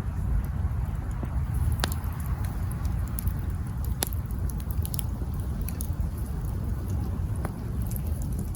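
Wood campfire burning with a low steady rumble and scattered sharp crackles and pops, the loudest about two and four seconds in.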